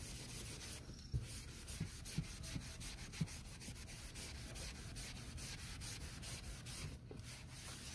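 Wet melamine foam sponge (magic eraser) scrubbing textured vinyl upholstery in quick back-and-forth strokes: a steady, rhythmic rubbing hiss.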